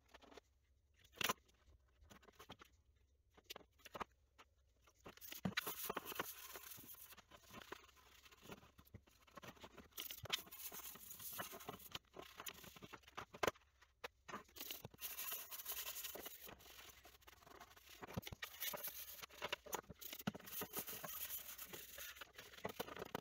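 A small brush scrubbing the plastic case of a Commodore 64, scratchy irregular strokes that start about five seconds in and come in spells with short pauses. A few light clicks of the plastic being handled come before.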